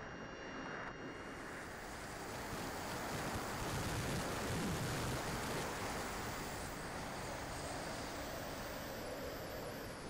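Wind rushing over a radio-controlled model plane's onboard camera microphone in flight, growing louder in the middle as the plane noses down toward the field.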